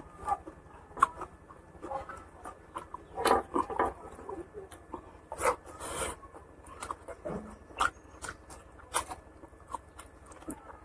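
Eating by hand: fingers squishing and mixing rice with curry gravy on the plate, with wet chewing and mouth smacks coming as a string of irregular short clicks.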